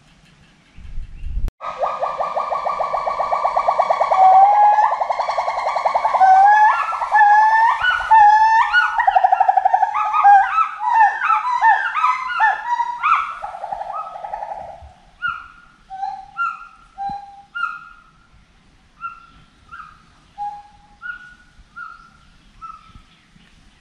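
A primate's long loud calling bout: it starts about a second and a half in with a rapid trill, breaks into rising whoops that come faster and climb in pitch, then slows into a series of short separate notes that grow fainter toward the end.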